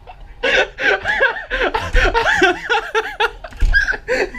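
A person laughing in quick repeated bursts, starting about half a second in.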